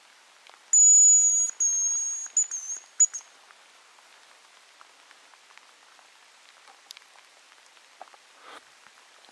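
Hazel grouse decoy whistle blown close by, imitating the male's song: a thin, very high whistle held for about a second, a second one, then a few short broken notes. Faint light rain pattering behind it, with a couple of small clicks and a brief rustle near the end.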